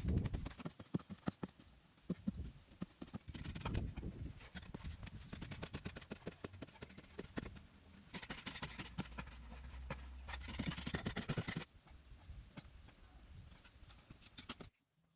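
Irregular series of knocks, taps and scrapes coming in short segments that change abruptly, then cutting off near the end.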